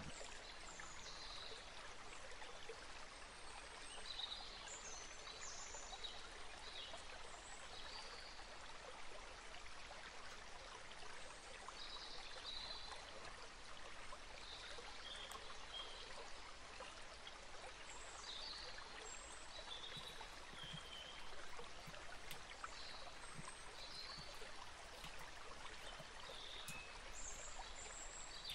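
Steady rush of running water, like a stream, with short high bird chirps scattered throughout.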